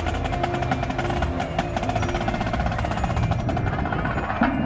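High school marching band playing: a fast, even run of drumline strokes under held horn notes, with low brass coming in louder near the end.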